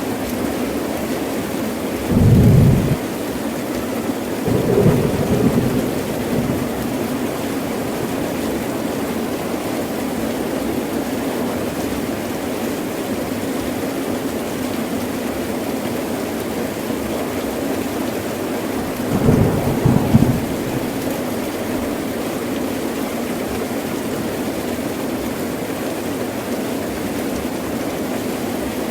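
Heavy rain pouring steadily, with short rolls of low thunder about two seconds in, again around five seconds, and once more near twenty seconds.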